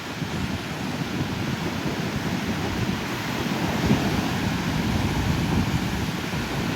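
Pacific Ocean surf breaking and washing up the beach: a continuous low rushing that swells a little about four seconds in.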